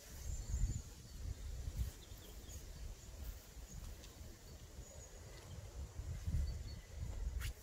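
Lakeside outdoor ambience: a low, gusty rumble on the microphone, with a few faint bird chirps and one sharp click near the end.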